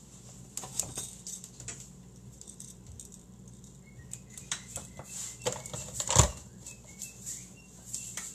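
Kitchen handling noises: scattered light clicks and knocks as a pepper mill and other utensils are picked up and put down, with one louder thump about six seconds in.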